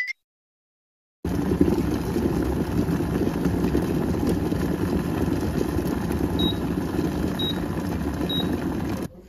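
Salton glass electric kettle at a rolling boil: steady bubbling and rumbling of water, starting about a second in. Near the end come three short high beeps about a second apart, and the sound then cuts off suddenly.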